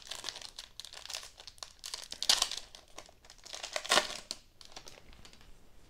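Panini Prizm Monopoly basketball card pack's wrapper crinkling as it is torn open and peeled off the cards. It comes in irregular bursts, loudest about two and four seconds in, then dies down.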